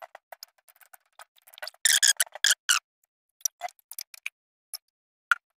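Double-sided tape being snipped into thin strips and handled: a run of small sharp clicks and crackles, with a denser, louder cluster about two seconds in.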